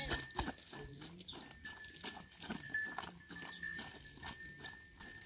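Farm livestock sounds, with a run of irregular light taps, several a second, over a faint steady high tone.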